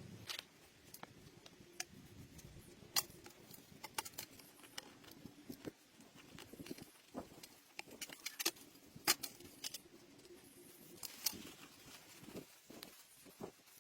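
Light, irregular clicks and taps of small tools and parts being handled on a hard work surface during phone disassembly, several sharp ticks scattered through, the loudest about three and nine seconds in.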